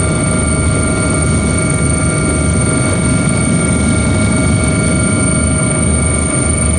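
Helicopter in flight, heard from inside the cabin: a steady, heavy rotor-and-engine rumble with several constant high-pitched whines over it.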